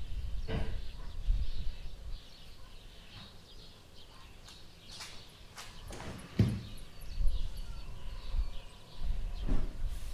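Young kittens moving about on a laminate floor: a few soft knocks and low thuds, with faint high chirping squeaks over them.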